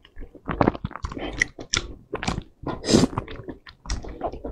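Wet chewing, smacking and slurping mouth sounds of a person eating wide starch noodles in sauce: a string of irregular short, sticky clicks.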